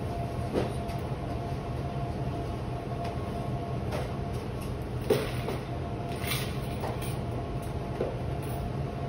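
Steady low machine hum with a faint constant whine, and a few light knocks and clicks scattered through it.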